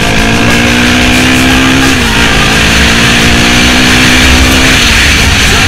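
Honda XR400R's single-cylinder four-stroke dirt bike engine running under way at steady revs. Its pitch dips briefly about two seconds in and falls lower near the end.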